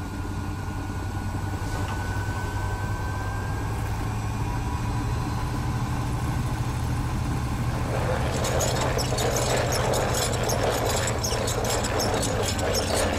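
A steady low rumbling drone with a faint tone slowly rising over it. About eight seconds in, a dense crackling rustle of toilet paper being pulled joins it and grows louder.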